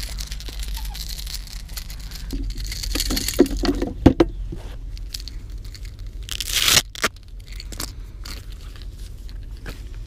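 Handling noise from a body-mounted camera: jacket fabric rustling and rubbing against the microphone as the wearer moves over the rocks and sits down, with a few knocks about four seconds in and a rising ripping noise near seven seconds that cuts off sharply.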